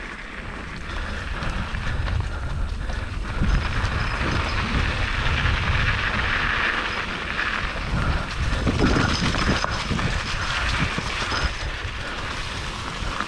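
Mountain bike rolling along a dirt trail: steady tyre noise over packed earth and dry leaves, with a low rumble and small rattles from the bike.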